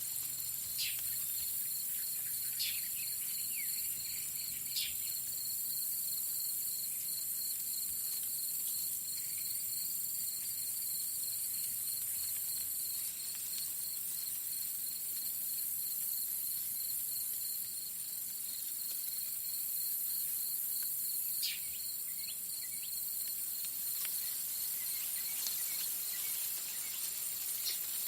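Field crickets chirping in a steady, evenly pulsed rhythm over a dense high insect hiss. A few brief, high, falling bird calls cut in near the start and again past the middle.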